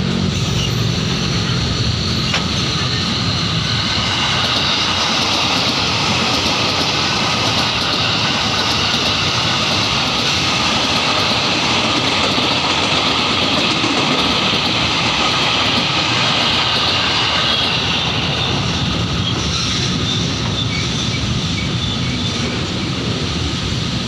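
Container freight wagons rolling past close by, a steady noise of steel wheels on rail. An electric commuter train passes on the next track through the middle, adding a high whine that rises and then fades away.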